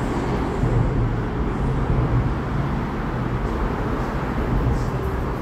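Steady low rumble of city traffic noise.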